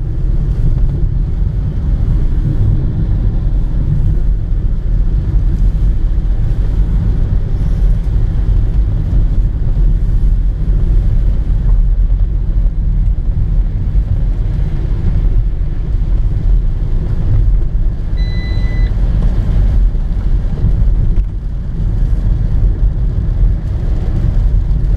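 Steady low rumble of a car's engine and tyres heard from inside the cabin while driving on a country road. A single short high beep sounds about three-quarters of the way through.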